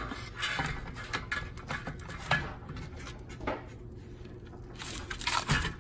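Light plastic clicks, taps and rustles from handling the microwave's plastic control panel parts and feeding its ribbon cable through, a few scattered knocks followed by a quicker cluster near the end.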